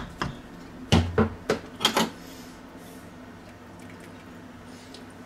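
Wooden spoon stirring thick stew in a cast-iron Dutch oven, knocking against the pot four times in quick succession in the first two seconds. After that only a faint steady hum.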